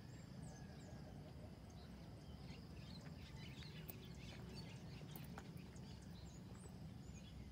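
Faint outdoor ambience: scattered short bird chirps and ticks over a steady low rumble.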